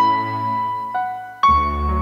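Slow background music of held keyboard notes: a new note comes in about a second in, and a fuller chord with a deep bass note just after that.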